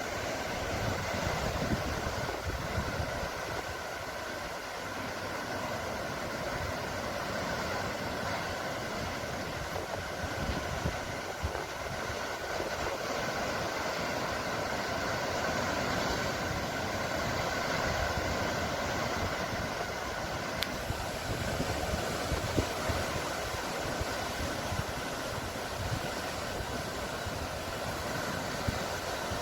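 Sound of the sea: a steady, continuous rush of water noise.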